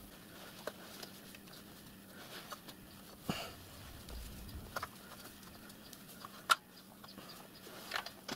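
Quiet handling noise as hands twist and tie a cloth tourniquet around thin sheet-metal boiler cladding: a rustle of cloth with scattered light clicks and taps, the sharpest about six and a half seconds in.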